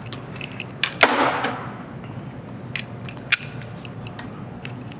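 Metal hand tools clinking and clanking during suspension work: one loud metallic clank about a second in, then a few scattered lighter clicks, over a steady low shop hum.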